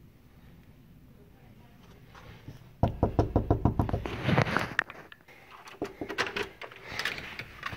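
A fist knocking on a hotel room door: a fast run of knocks starts about three seconds in, followed by a few more scattered knocks.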